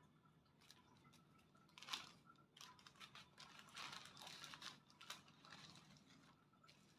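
Faint crinkling and rustling of small plastic zip-lock baggies of diamond-painting drills being handled, with a sharper crinkle about two seconds in and a busier stretch around four to five seconds.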